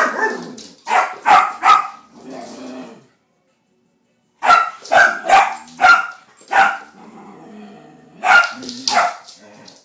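A puppy barking at another dog: about a dozen sharp, high barks in three quick runs, with a silent pause of over a second after the first run, and low growls between some of the barks.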